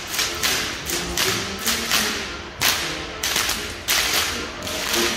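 Traditional Bavarian whip cracking (Goaßlschnalzen): sharp whip cracks in a steady rhythm of about two a second, each with a short echo.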